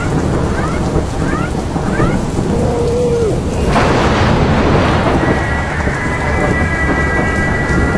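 Heavy rainstorm: loud rain with a deep, continuous rumble. A sudden burst of noise about four seconds in, and a steady high tone through the second half.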